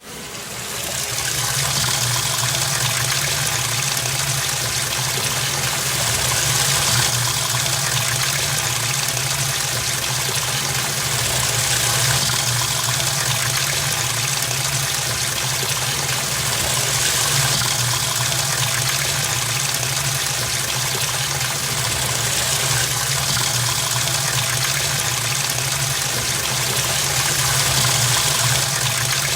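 Rushing floodwater: a loud, steady torrent over a low rumble, fading in over the first second or so and surging about every five seconds.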